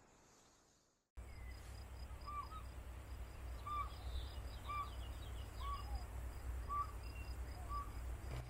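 Crickets trilling steadily, with a short hooked call repeated about once a second and a low rumble underneath. It starts abruptly about a second in, after a moment of silence.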